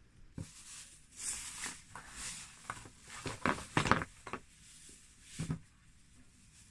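Rustling and crinkling of packaging with a few light clicks and knocks as boxed makeup items are handled and taken out, loudest in the middle.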